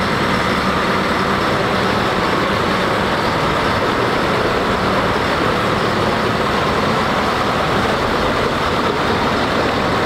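A boat engine running steadily under an even, constant wash of noise.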